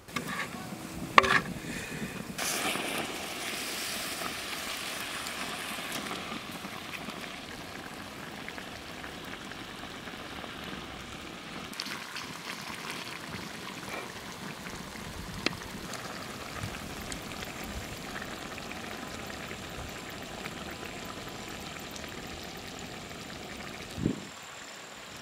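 Steady hissing and crackling from a large steaming biryani pot over a fire while the rice is turned with a metal ladle, with one loud sharp knock about a second in and a few light ladle clicks later on.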